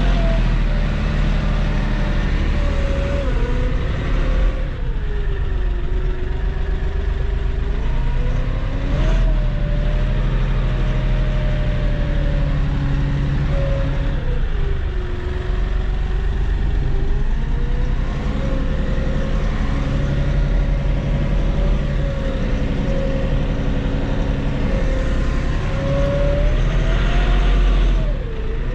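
Tractor diesel engine running, heard from inside the cab. Its pitch drops and recovers twice as the engine speed sags and comes back up, then rises again near the end, while the front loader works a round straw bale.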